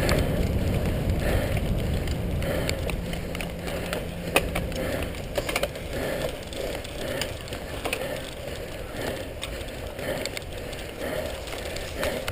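Cyclocross bikes ridden over grass and dry leaves: tyres rolling, with the chain and drivetrain rattling and scattered sharp clicks and knocks from bumps. A low wind rumble on the microphone fades over the first few seconds as the pace drops on the climb.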